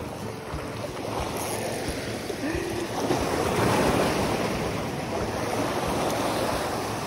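Small sea waves washing and splashing over the rocks of a breakwater, swelling about halfway through and then easing.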